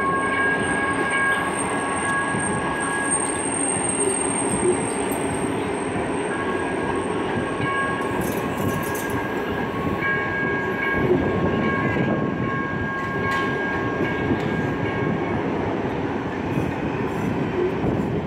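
Metro Transit light rail train passing close by at a platform: a steady rumble of wheels on the rails, with high steady tones that come and go.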